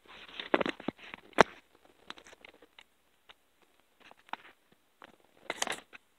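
Handling noise from the camera being moved and set in place by hand: scattered rustles and clicks, with one sharp knock about a second and a half in and a short burst of rustling near the end.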